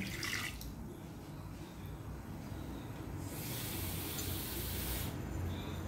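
Water poured from a bowl into a nonstick wok with a steamer rack, splashing into the water already in the pan. A brighter hiss runs for a couple of seconds past the middle.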